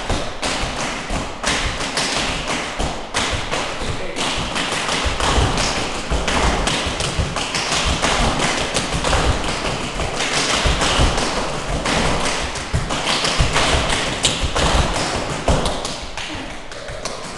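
A group of tap dancers in tap shoes running through tap rudiments together on a hard floor: a dense, continuous stream of metal-tap clicks and heel drops, easing off a little near the end.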